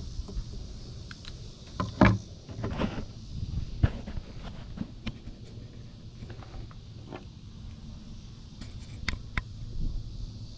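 Handling noise: scattered knocks and clicks, the loudest about two seconds in and another near four seconds, with a few more near the end, over a low steady rumble.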